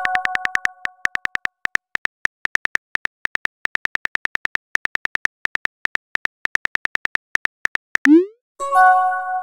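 Texting-app sound effects: a rapid run of phone-keyboard typing clicks, with a bright chime fading over the first second. Near the end a short rising swoosh marks a message being sent, and the chime rings again.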